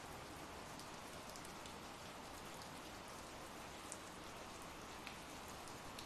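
Ambient rain sound effect: a faint, steady rain hiss with scattered sharper drop ticks, one a little before four seconds in standing out.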